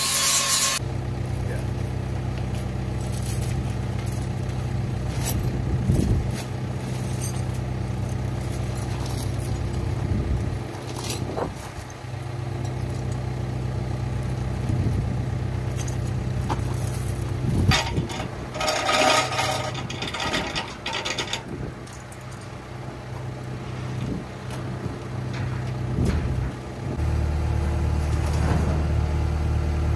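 Excavator diesel engine idling steadily, with loose metal clinks and rattles of chain being handled. An angle grinder's hiss cuts off about a second in, and near the end the engine note changes and grows louder as the machine takes up load.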